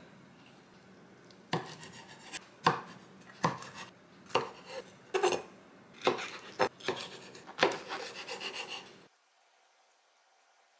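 Chef's knife chopping through fresh wood ear mushrooms onto a wooden cutting board: a dozen or so unevenly spaced knocks, which stop suddenly near the end.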